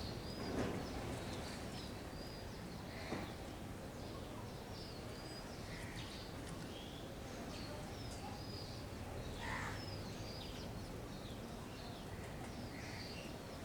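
Small birds, likely house sparrows, chirping over and over in short high notes, with a few lower calls from another bird mixed in, over steady outdoor background noise. A brief soft knock about half a second in.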